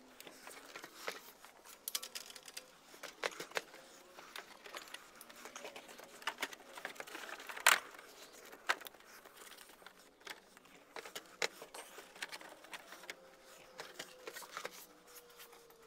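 Scattered light clicks and knocks of a mini-split air handler being handled and fitted onto its wall bracket, with one sharper knock about eight seconds in.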